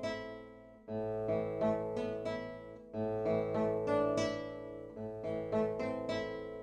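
Acoustic guitar chords picked one string at a time with a plectrum, each note left ringing, moving through a chord change about every two seconds.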